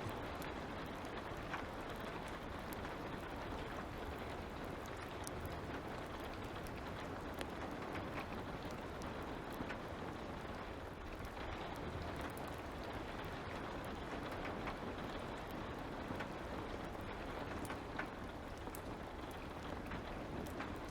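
Light rain falling in a steady hiss, with scattered small sharp crackles and pops from a wood fire.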